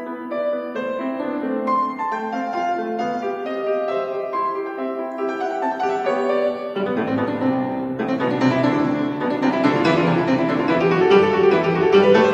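A grand piano played solo in a classical piece: a lighter passage of clear single notes in the middle register, then from about seven seconds in a louder, fuller passage with rapid notes and bass added.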